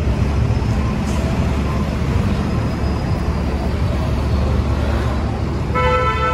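Street traffic under an elevated train line: a steady low rumble of passing cars and buses. Near the end a vehicle horn honks once, briefly.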